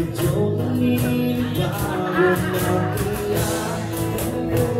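Live acoustic band music: guitars with a singer.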